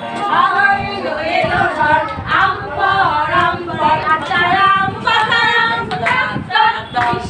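Women's and children's voices singing a song together.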